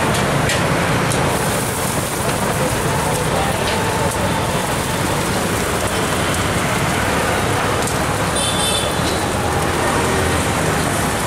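Dosas sizzling on a hot flat griddle, a steady hiss, with low street-traffic rumble underneath.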